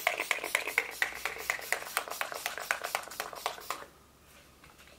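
Maybelline Lasting Fix setting spray pumped in a rapid run of short mist sprays, about six a second, stopping abruptly about four seconds in.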